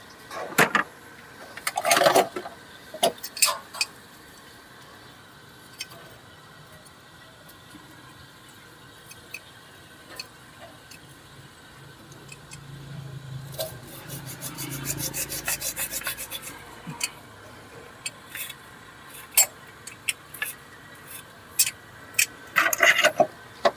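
Pliers clicking, scraping and knocking against the metal of a stuck coolant pipe and thermostat housing on a Toyota Avanza engine as they are worked loose. There is a run of rapid ticking for a couple of seconds about midway, and a cluster of knocks near the end.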